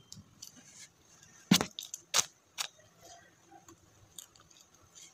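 Close-miked chewing of crispy fried chicken skin: soft mouth sounds with a few sharp crunches, the loudest about one and a half to two and a half seconds in.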